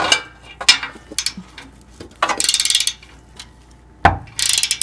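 Ratchet wrench clicking in two quick runs, about two seconds in and near the end, as it spins nuts down onto the oxygen sensor's flange studs on the exhaust pipe. Scattered metal clicks of the socket on the nuts, and a single knock about four seconds in.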